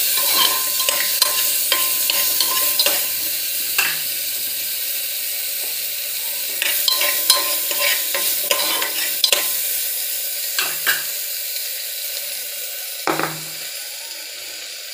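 Carrot and potato pieces sizzling in hot butter in a pressure cooker pan, with a spoon clicking and scraping against the metal pot as they are stirred, in two spells.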